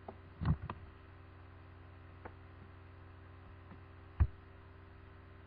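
Steady low electrical hum from a computer microphone setup, broken by a few sharp clicks and thumps of someone working a mouse and keyboard at the desk. The loudest come about half a second in and about four seconds in.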